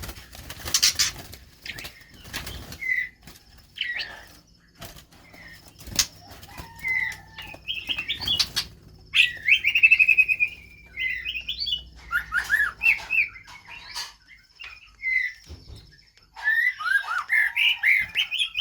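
White-rumped shamas fluttering and flapping their wings, with sharp knocks and clicks, mixed with short chirps and call notes. A longer, louder trilling phrase comes about halfway through, and a quick run of calls near the end.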